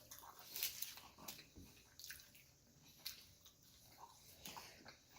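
Faint, wet chewing of a burger, with a few scattered mouth smacks and clicks.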